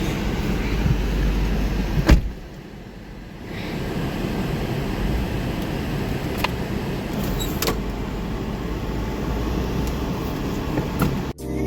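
Car running with a steady low rumble and one loud thump, like a car door shutting, about two seconds in, with a few lighter clicks later.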